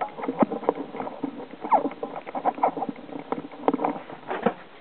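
Electrix RC Torment electric RC truck running over rough ground: a dense run of irregular clicks and rattles with a few short squeaks.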